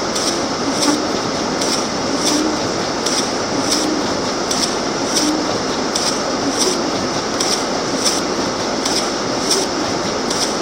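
Footsteps crunching in snow at a steady walking pace, about one and a half steps a second, over a steady rushing noise.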